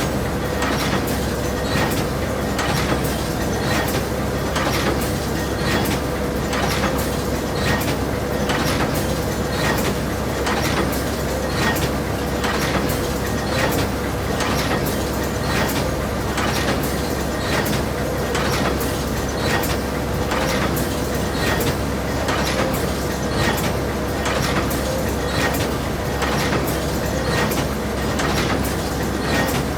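Industrial cutting machine running steadily, with a sharp clack repeating about twice a second over a constant low hum and a steady tone.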